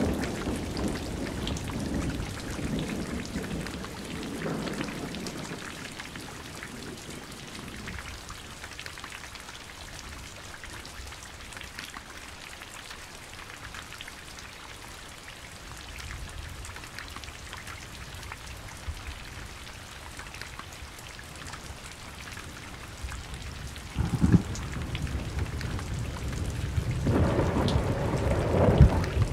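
Thunderstorm: steady rain falling throughout, with thunder rumbling and dying away over the first several seconds, a sharp thunderclap about 24 seconds in, and another rolling peal building near the end.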